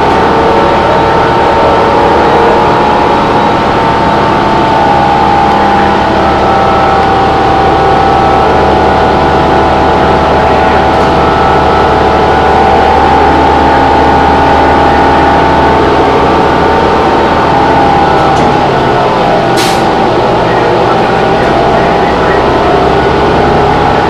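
Cummins ISL9 inline-six diesel engine and Allison B400R6 automatic transmission of a 2011 New Flyer Xcelsior XD40 transit bus running, heard from inside the passenger cabin: a loud, steady drone with a high tone that slowly drifts in pitch. A single sharp click comes about three-quarters of the way through.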